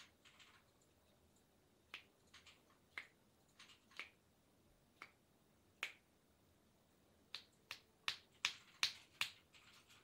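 Sharp finger snaps during a hand massage, scattered at first. Near the end they come in a quicker, louder run of six, about two or three a second.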